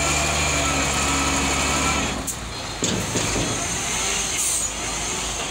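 Dump truck's diesel engine running steadily, its note dropping away suddenly about two seconds in. Short air-brake hisses follow as the truck creeps back.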